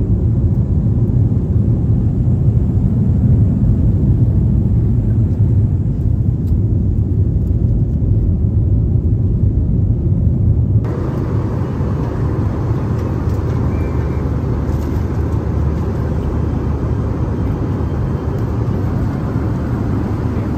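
Airliner cabin noise from a window seat: a steady, loud low roar of the jet engines and airflow. About eleven seconds in it changes abruptly to a thinner, hissier roar.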